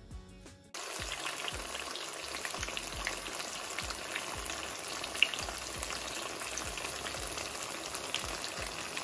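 Slabs of tofu frying in hot oil in a wok: a steady sizzle with scattered crackles and one sharp pop about five seconds in. The sizzle cuts in abruptly under a second in.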